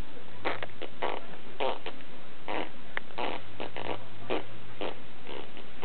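A child making a string of short fart noises, irregularly spaced and often several a second.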